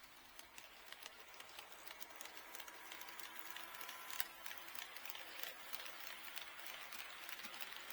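HO scale model train running on sectional track: a quick, uneven clicking of wheels over the rail joints, faint and growing louder as it comes closer.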